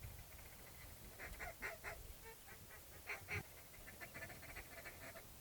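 Wigeon whistling: faint runs of short, high whistled notes, loudest a little after three seconds in.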